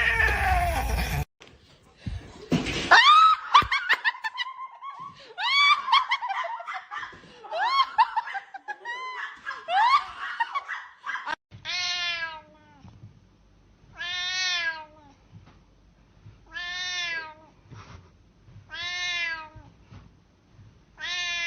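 A cat meowing: first a busy run of short, rising and falling calls, then from about halfway a steady series of five long, arched meows about every two and a half seconds.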